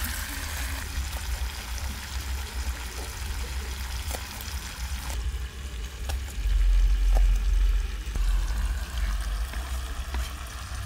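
Pot of curried chicken sizzling over a hot open fire, a steady hiss, with a low rumble of wind on the microphone that grows loudest about six to eight seconds in. A few light knife taps on a cutting board as an onion is chopped.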